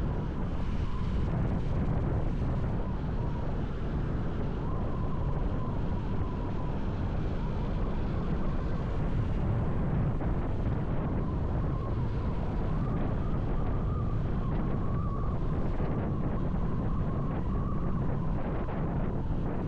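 Steady wind rush on the microphone from a moving motorcycle, heavy and low, with a faint wavering whine running underneath.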